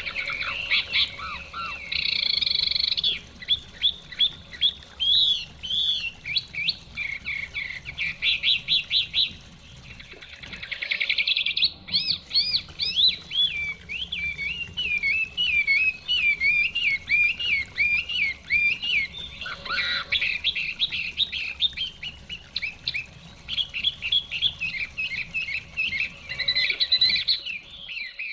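Chinese hwamei singing a long, varied song almost without pause: runs of fast repeated notes and trills alternating with rising and falling whistled slurs.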